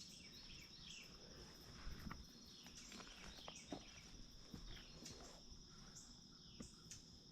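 Faint, calm outdoor ambience: a steady high insect drone with a pulsing edge, and many short, falling bird chirps. A few faint knocks sound now and then.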